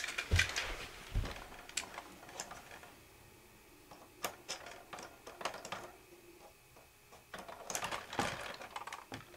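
Irregular clicks and taps of hard plastic as a Bruder toy plough attachment is handled and fitted against the front of a plastic toy Jeep, with a quieter pause partway through.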